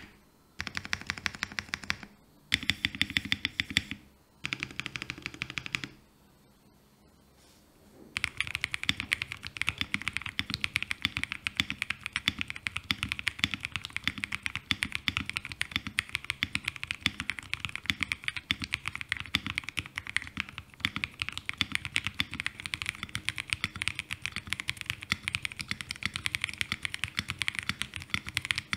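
Typing on a Leobog K81 mechanical keyboard with its stock Ice Crystal switches. Three short bursts of rapid keystrokes separated by brief pauses come first, then a lull, then continuous fast typing from about eight seconds in.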